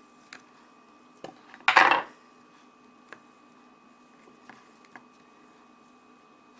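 Light clicks and knocks of small hard objects handled on a tabletop, with one louder clatter just under two seconds in.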